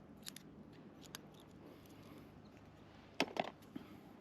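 Small clicks of fishing tackle being handled, then a short clatter of several sharp clicks about three seconds in.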